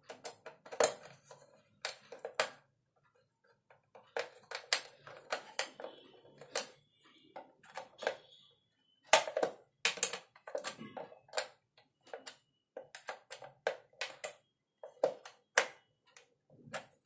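Screwdriver and screws clicking and scraping against the case of a mercury sphygmomanometer as the screws holding the glass tube's lower end are tightened: irregular sharp clicks and small knocks with short pauses between them.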